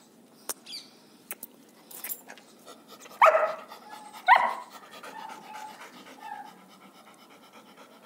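A dog gives two short, high-pitched barks about a second apart, after a few faint clicks.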